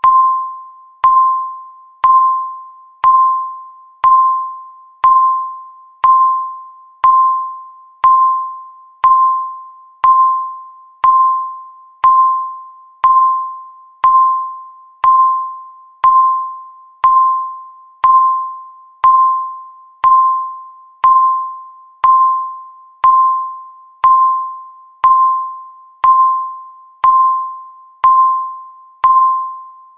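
Countdown timer beep: a short electronic tone of about 1 kHz, once a second, each starting sharply and dying away quickly.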